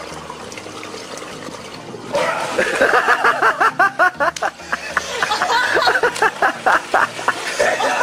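Pool water sloshing and splashing. About two seconds in, a person breaks into loud, rapid, wordless laughter in short repeated bursts that keep going.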